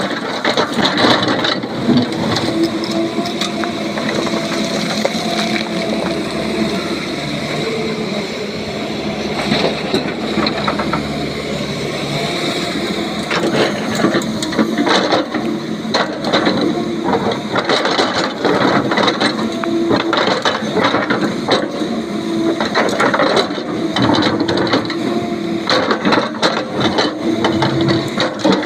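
Excavator diesel engine running steadily while loading a dump truck, with repeated clattering and crashing of stone dropping into the tipper body. The knocks come thicker from about halfway through.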